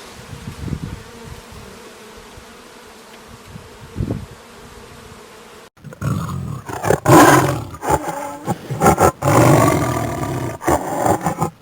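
A big cat roaring: after a quieter stretch with a faint hum and a few low thumps, a sudden cut about halfway through brings a run of loud, rough roars in several bursts.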